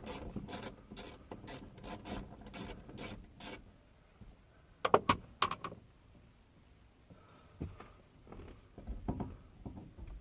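Hand work on a car's in-tank fuel pump assembly: a run of quick rubbing or scraping strokes, about three a second, that stops after three or four seconds. Then come two sharp clicks about five seconds in, followed by quieter handling sounds.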